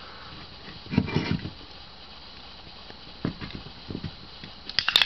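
A few dull knocks as a tall aluminium can of Four Loko is handled, then near the end the sharp crack of its pull-tab being opened.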